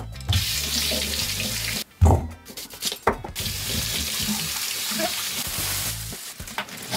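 Water running steadily from a tap into a sink, with a brief break and a sharp knock about two seconds in.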